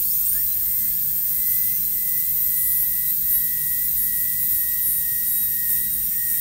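High-speed dental air-turbine handpiece with a 330 bur winding up with a rising whine, then running at a steady high-pitched whine with hiss as it cuts across the oblique ridge of a maxillary first molar.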